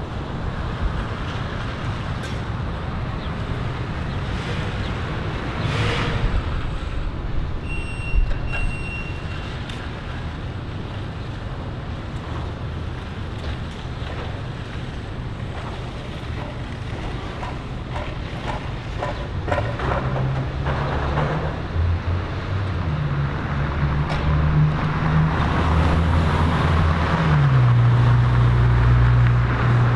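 Street traffic: a steady low rumble of engines, with a car driving past near the end, its engine growing louder as it nears. A short electronic beep sounds twice about eight seconds in.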